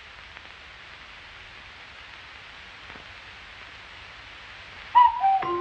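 Steady hiss from an old film soundtrack, with no music or voices. About five seconds in, a melody of bright mallet-percussion notes begins.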